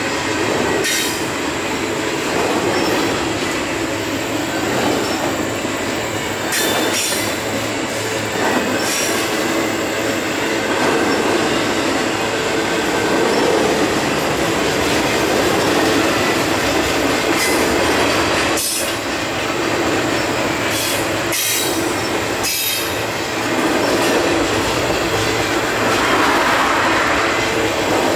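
CSX double-stack intermodal freight train's well cars rolling past: a steady rumble of steel wheels on the rails, with a few sharp knocks along the way.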